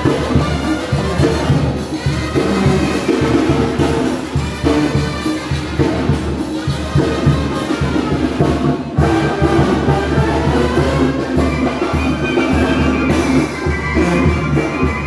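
Brass band playing dance music, with brass over a steady drum beat.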